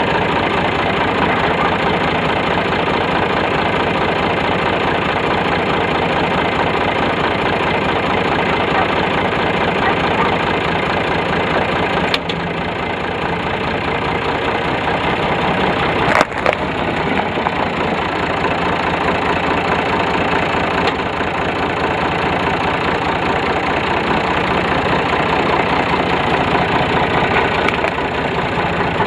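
Tractor engine running steadily while a small metal toy car is crushed under its tyres, giving a sharp crack about twelve seconds in and a louder one about sixteen seconds in.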